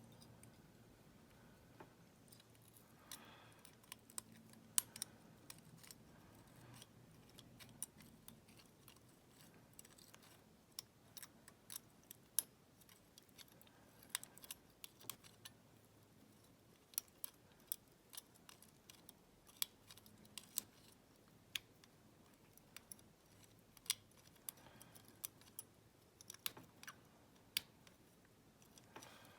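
Scattered faint metallic clicks and ticks as a wire lock pick and tension tool work inside a WEP Secure 5-lever padlock, coming irregularly, sometimes several in quick succession.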